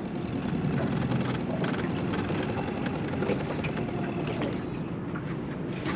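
Strong wind buffeting the microphone on a small drifting boat, a steady low rumble, with faint ticks and slaps of water against the hull.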